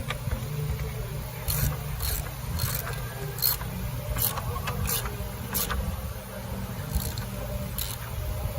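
A ratchet wrench tightens the battery hold-down bolt in short strokes, each stroke a sharp metallic click, about one every three-quarters of a second. A steady low hum runs underneath.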